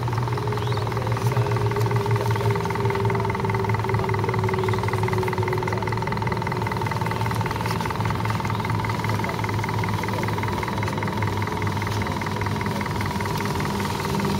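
Electric motor and gear drive of an RC scale crawler truck whining steadily as it crawls slowly over a dirt trail.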